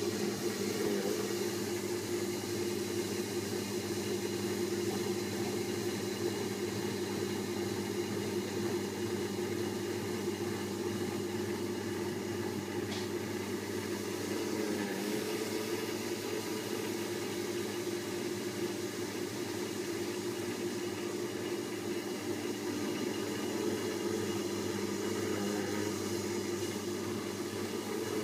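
Premier wet grinder running with its dough-kneading attachment: the electric motor and turning stainless drum give a steady hum as a lump of dough is kneaded.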